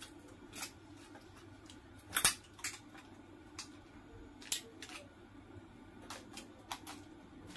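Hand cutters snipping and clicking at a lithium-ion power-tool battery pack, cutting the circuit board and strips away from the cells: about ten short, sharp snips at irregular spacing, the loudest about two seconds in.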